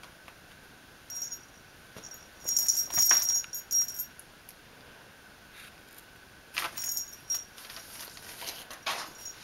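A small jingle bell jingling in short bursts as a kitten plays, loudest about three seconds in and again near seven seconds, with soft scuffs from its scrambling between the bursts.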